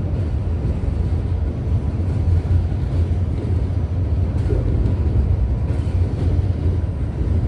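Subway train running along elevated track, a steady low rumble with a hiss of noise above it.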